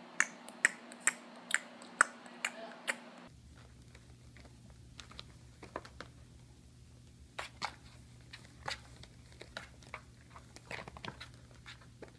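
About eight sharp clicks, roughly two a second, in the first three seconds. Then kittens scrabbling in a cardboard box, with scattered light scratches and taps of claws on cardboard.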